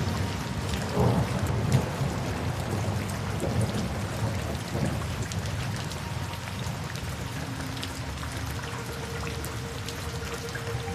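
Steady rain falling, with a low rumble of thunder about a second in.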